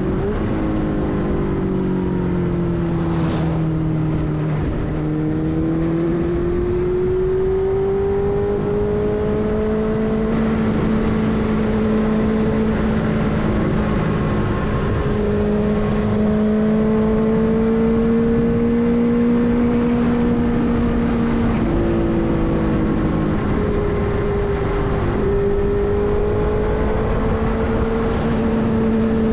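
Benelli TNT600i's inline-four engine and exhaust under way on the road. The engine note drops about three to five seconds in, then climbs back and holds fairly steady, with small changes in pitch around fifteen and twenty-two seconds.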